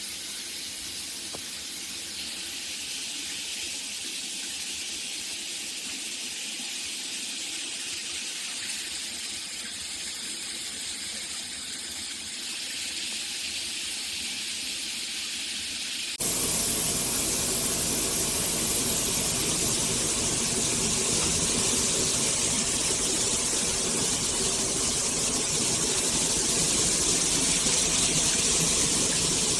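Water spraying steadily from a shower head, a dense hiss. About halfway through it turns abruptly louder and fuller, and stays that way.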